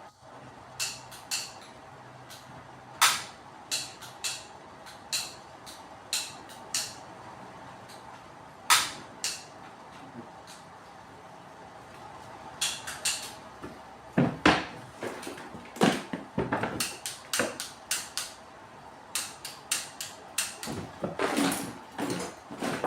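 A series of sharp separate clicks and knocks, then denser clattering of small hard objects being handled from about halfway through, over a faint steady hum.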